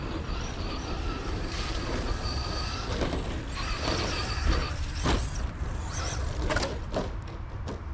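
Traxxas Slash BL-2S 2WD RC truck driving on a dirt track, its brushless motor whining high in two throttle runs over a steady low rumble, with a few sharp knocks in the second half.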